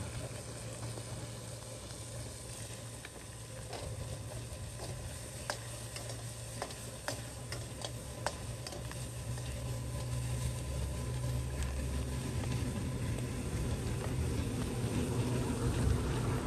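Pork and chopped scallions frying in hot oil, a steady sizzle, with a utensil clicking against the pan several times about four to eight seconds in as the food is stirred.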